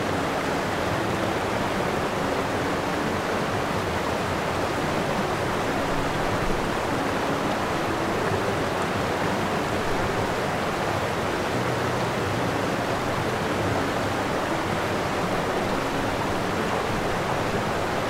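Steady rushing water, with faint held music notes coming and going underneath.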